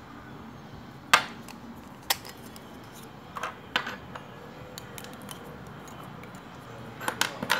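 Large plastic piping-bag coupler parts and stainless steel piping tips clicking and knocking as they are handled and set down on a table. A few scattered sharp clicks, a loud one about a second in and a quick cluster near the end.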